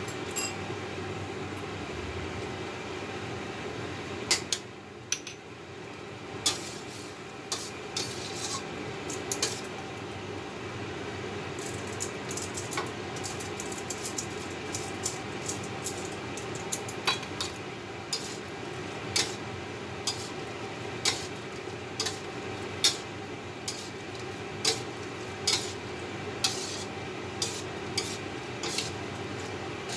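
A metal spatula scraping and clinking against a steel wok as fusilli is tossed in a cream sauce with prawns and squid. The clinks come about once a second through the second half, over a steady background hum.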